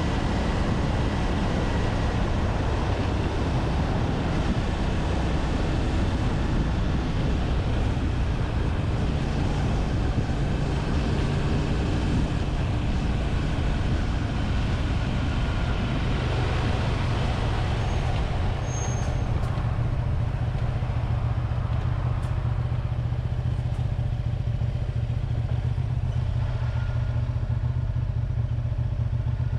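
1985 Honda VT250F Integra's 250 cc V-twin engine running, a steady low engine note under a rushing noise that eases a little past halfway.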